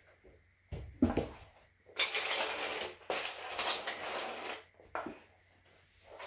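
A knock on a wooden floor about a second in, then scraping and rustling as a child handles wooden chain-reaction track pieces and shuffles across a laminate floor.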